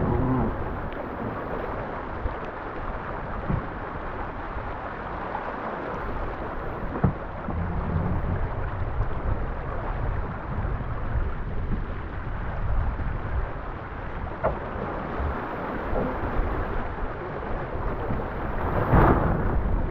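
Wind buffeting the action camera's microphone aboard a sailboat under way in rain, a steady low rumble with water rushing along the hull. There are a few sharp taps, and a louder gust or splash about nineteen seconds in.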